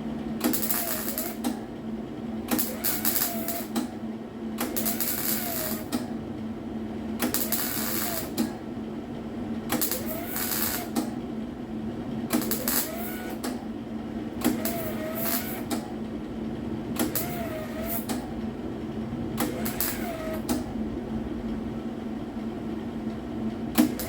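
Welder laying short stitch welds on a car's replacement steel quarter panel: about ten crackling bursts, each about a second long and coming about every two to two and a half seconds, over a steady hum.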